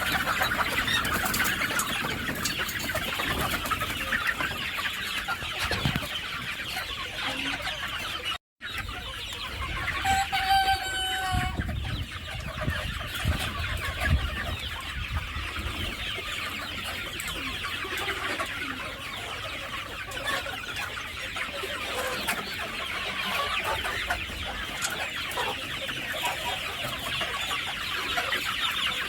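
A flock of chickens clucking and calling over one another continuously, with a rooster crowing once about ten seconds in.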